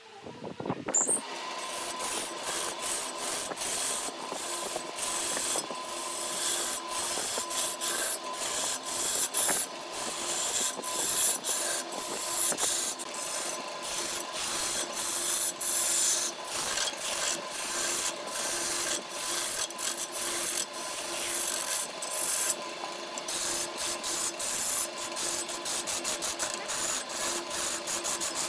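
A hand-held turning tool cutting into a log spinning on a wood lathe, starting about a second in: a continuous rasping scrape full of rapid, irregular knocks as the tool meets the rough surface, over a faint steady whine. The cut pauses briefly near the end.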